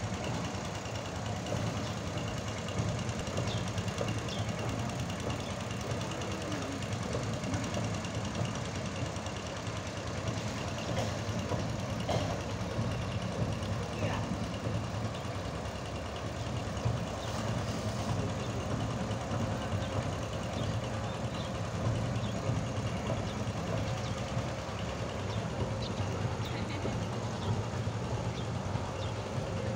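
Engine of a wooden river passenger boat running steadily, a low, even sound with little change in speed.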